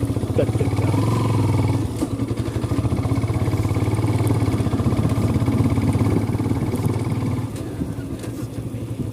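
Motorcycle engine running steadily while riding, easing off about seven and a half seconds in.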